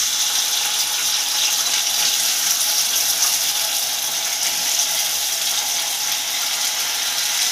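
Diced potatoes sizzling in hot ghee in a kadhai: a steady, loud frying hiss that sets in as the potatoes go into the fat and holds evenly.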